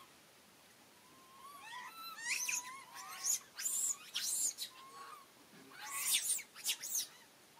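Long-tailed macaques squealing and screeching: a string of high calls with sliding pitch, starting about a second and a half in and stopping shortly before the end.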